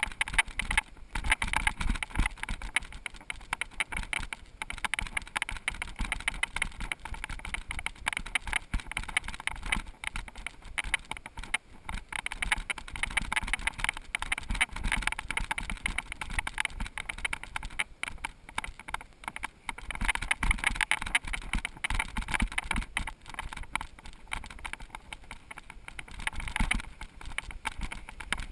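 Mountain bike clattering over a rough trail: a continuous, irregular rattle of rapid knocks from the bike, with wind buffeting the microphone.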